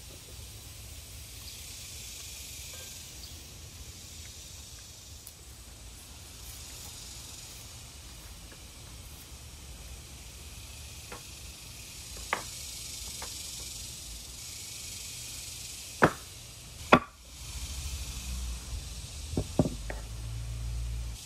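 A steady hiss that swells and fades every few seconds, with a few sharp knocks in the second half: two loud ones close together about two-thirds through and a small cluster near the end.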